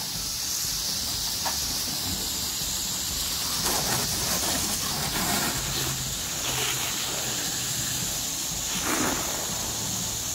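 Garden hose spray nozzle shooting a strong jet of water, a steady hiss, rinsing soap off an RV roof.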